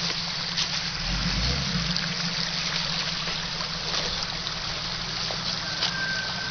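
Shallow creek trickling over rocks, steady, with a Jeep Cherokee's engine running low underneath.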